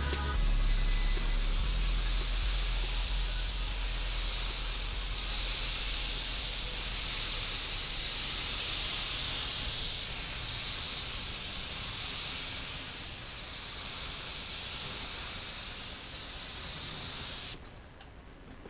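Paint spray gun hissing as it sprays, the hiss swelling and easing every few seconds with each pass, then cutting off suddenly near the end.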